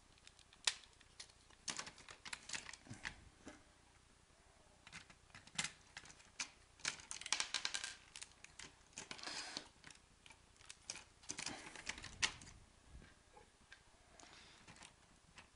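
Small plastic clicks and rattles of LEGO parts being handled and pressed together as the locomotive body and chassis are fitted back onto each other. The clicks come irregularly, some in quick clusters, and thin out near the end.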